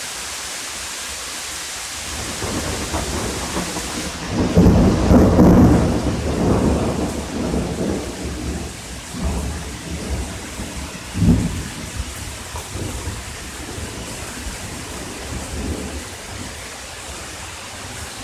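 Thunder rolling over steady heavy rain. A long rumble builds about two seconds in and is loudest around five seconds. A sharper clap comes about eleven seconds in, followed by weaker rumbles.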